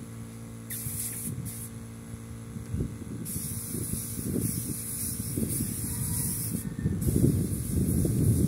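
Compressed-air spray gun hissing as it sprays sanding sealer, the trigger pulled in bursts with short pauses, a longer pause early on and a brief break near the end. A steady low hum from the air compressor runs underneath.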